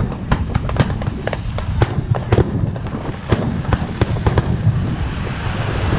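Fireworks display: a rapid, irregular string of sharp bangs and crackles from bursting shells, several a second, over a low rumble.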